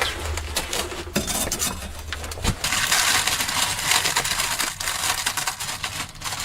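Knocks and clinks of cookware at a small camp stove, then a dense crackling hiss for about three seconds.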